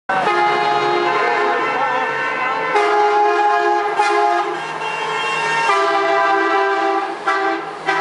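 Horns of a convoy of big-rig trucks blowing in long, overlapping blasts, several pitches sounding together and changing every second or two as trucks pass.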